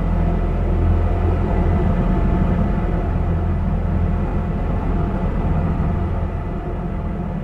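Experimental noise music: a dense, steady low rumbling drone with sustained deep tones and a faint high steady tone above, easing slightly in level toward the end.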